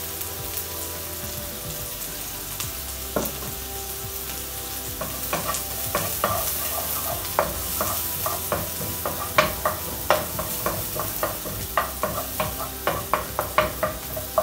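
Chopped onion sizzling in hot oil in a non-stick wok, with a wooden spoon stirring and knocking against the pan from about five seconds in, the knocks coming more often toward the end.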